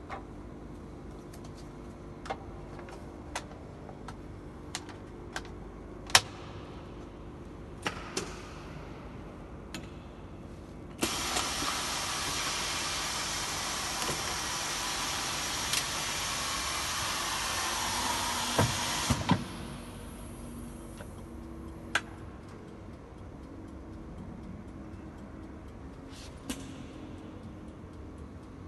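Automated display-bonding assembly machine at work: a steady low hum with scattered sharp clicks and clacks of its moving parts, and a loud hiss of air lasting about eight seconds in the middle, starting and stopping abruptly.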